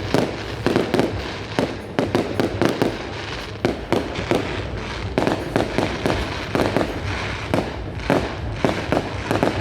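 Fireworks going off in rapid succession: many sharp bangs and crackling pops, several a second, over a continuous rumble of the display.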